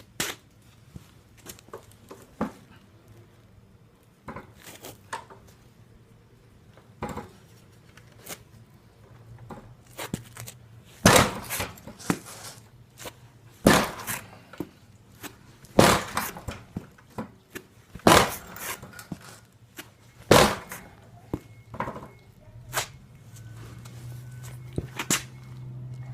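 Knocks and clatter from hands-on repair work on a motorbike's front end: scattered light clicks, then five loud sharp impacts about two and a half seconds apart. A steady low hum sets in near the end.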